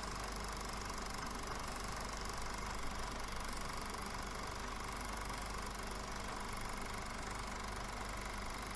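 Film projector running steadily: an even mechanical whirr with a constant hum, unchanging throughout.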